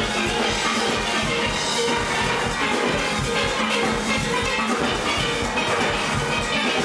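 Steel orchestra playing a soca tune on many steelpans together, with a steady drum beat underneath.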